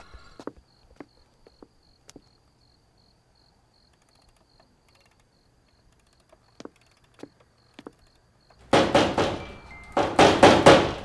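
Crickets chirping faintly with a few soft ticks, then near the end two loud bursts of rapid rattling and banging from a metal-grilled glass door being shaken.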